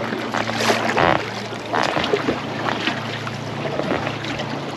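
Kayak paddles dipping and water splashing and lapping against kayak hulls, with a steady low hum underneath.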